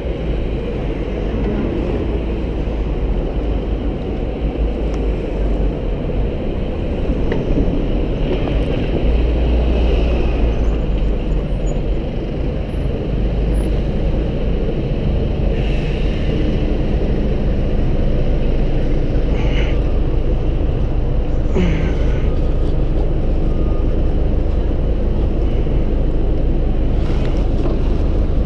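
Steady low wind rumble on the microphone of a moving bicycle, mixed with the noise of motor traffic in a city street.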